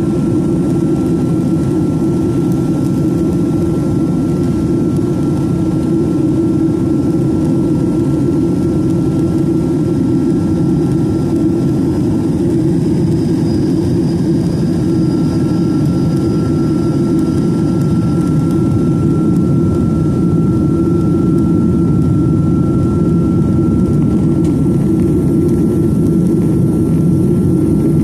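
Jet engine noise heard inside the cabin of a Boeing 737-900ER with CFM56-7B turbofans: a steady, loud roar with a thin steady whine over it, growing slightly louder over the stretch.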